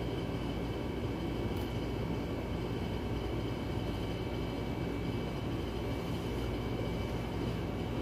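A steady mechanical drone: a low rumble with several held high tones, no strokes or changes.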